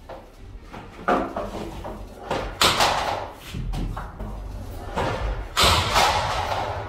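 Three sudden loud bangs and thumps as a plastic chair is yanked out from a desk and a boy drops onto the floor.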